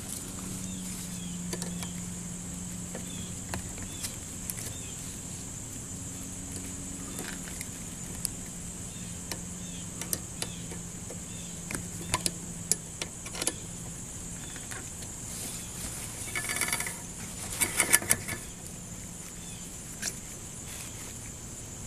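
Scattered small metallic clicks and rattles of hand tools working a bicycle's rim brake and cable as it is readjusted. A quicker run of clicking comes about 17 to 18 seconds in, over a steady high-pitched hum.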